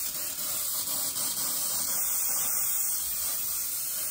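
Hairspray being sprayed onto hair in one continuous, steady hiss that holds without a break.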